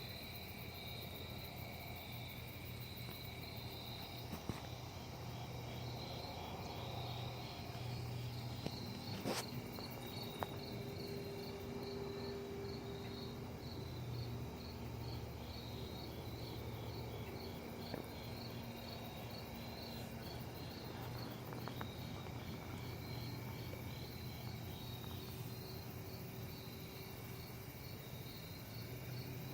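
Crickets chirping in a steady, evenly repeating rhythm over a low, steady hum.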